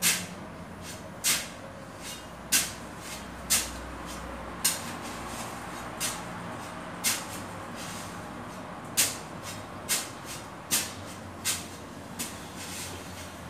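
Sharp, hard knocks from a hand tool striking the floor during tiling work, about one a second at an uneven pace.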